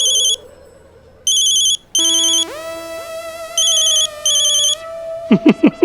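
Electronic telephone ringtone trilling in short repeated bursts, a phone ringing in the middle of a call. A comic musical sting slides in about two seconds in and holds under the rings, and a quick run of short falling sounds follows near the end.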